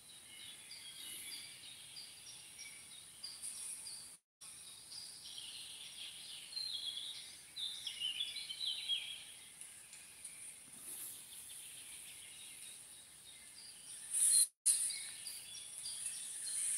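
Small birds chirping and singing over a steady high hiss. The sound cuts out completely for a moment twice.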